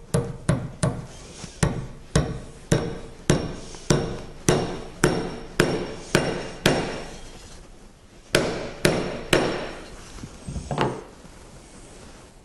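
A hammer tapping small cast-iron wedges into the top of a hardwood handle in a ball-pein hammer head's eye, driving them in to lock the head on. It makes a run of sharp metallic taps with a short ring, about two a second, then a pause, three more taps and a last duller knock.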